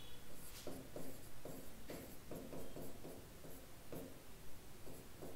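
Marker pen squeaking on a whiteboard as letters are written, in a quick run of short separate strokes.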